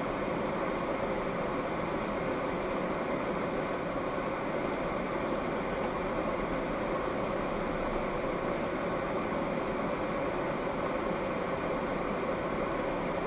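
Steady car engine and road noise, an even hum that holds unchanged throughout, with no impacts.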